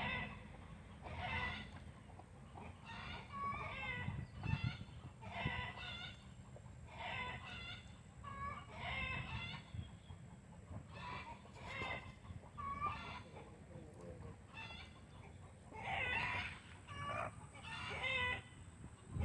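Backyard chickens clucking and calling over and over, a short call about every second.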